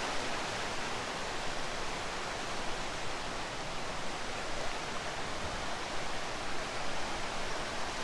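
Rushing water of a rocky mountain river tumbling over stony riffles and small cascades: a steady, even roar without any breaks.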